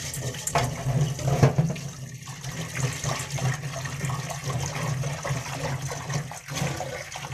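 Tap water running steadily into a stainless steel pot of red lentils in a steel sink, splashing as a hand swishes the lentils to wash them.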